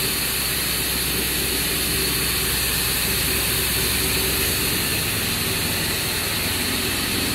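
LAN cable triple-twist pair-twisting machine running steadily: an even hiss with a low hum underneath.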